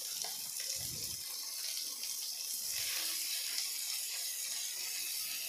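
Diced onion and capsicum sizzling in hot oil in a nonstick kadai as they are sautéed, a steady hiss, while a silicone spatula stirs them.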